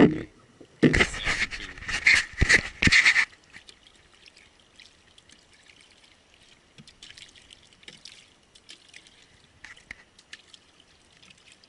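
Water splashing and pouring in a few loud rushes for about three seconds, then only faint trickling and small drips.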